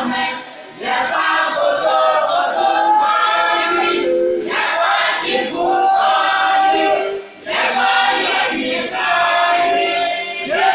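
A congregation singing together in chorus, many voices holding long notes. The song breaks briefly about half a second in and again about seven seconds in.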